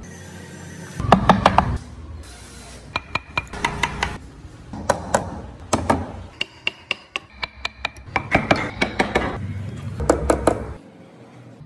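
Wooden parts being tapped into place with a hardwood block: quick runs of sharp wooden knocks in several bursts, the loudest about a second in.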